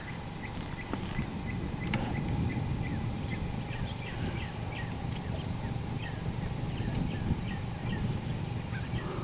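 Wind noise on the microphone, with small birds chirping over and over in the background.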